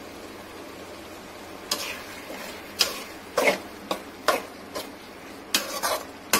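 Spatula scraping and knocking against a metal kadai as frying onion-tomato masala is stirred, over a steady frying hiss. About nine separate scrapes and knocks start a little under two seconds in.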